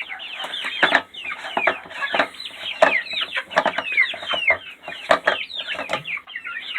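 A flock of chickens clucking and squawking busily all at once, with many overlapping short calls and a few sharp clicks or pecks.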